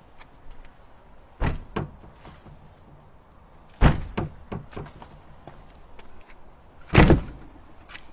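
Body-hit sound effects: three heavy, dull thuds, each followed by one or two smaller knocks, about a second and a half in, near four seconds and near seven seconds. The last one is the longest.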